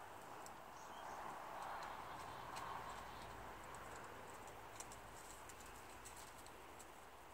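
Quiet outdoor ambience: a faint steady hiss with scattered light ticks, which come more often in the second half.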